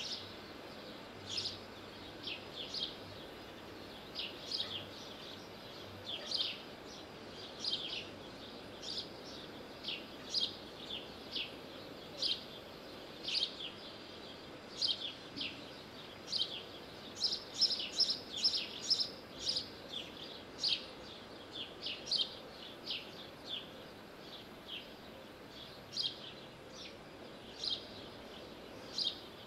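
A bird chirping again and again: short, sharply falling high chirps about once a second, coming in a quicker run a little past the middle, over a steady background hiss.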